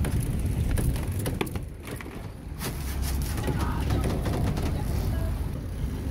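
Wind buffeting the microphone over sea noise on the deck of a sailing catamaran. A rapid scatter of clicks and knocks from rigging and gear being handled falls in the first few seconds.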